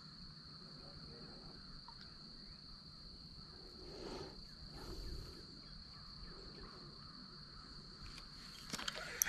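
Faint creek-side ambience with an insect's steady high-pitched buzz. Near the end, a few clicks start as a spinning reel is handled.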